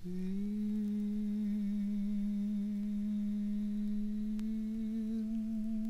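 A man singing one long held note in a slow song. The note slides up a little at the start, then holds steady with a slight vibrato.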